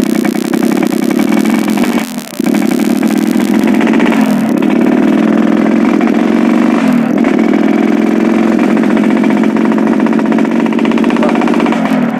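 Yamaha RX-King's two-stroke single-cylinder engine running under way, its carburettor set for a rough, growling 'ngorok' exhaust note. The engine note drops briefly and picks up again about four times.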